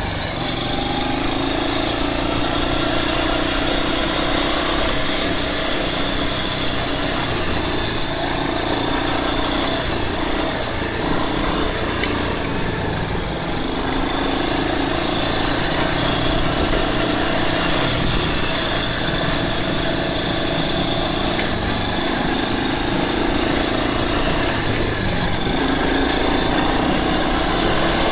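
Yamaha Big Bear 350 ATV's single-cylinder four-stroke engine running steadily while riding along a dirt track, its note shifting a little in pitch as the throttle changes.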